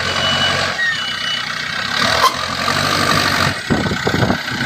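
Diesel engines of a backhoe and tipper trucks running, with a vehicle's reversing alarm beeping twice in the first second or so.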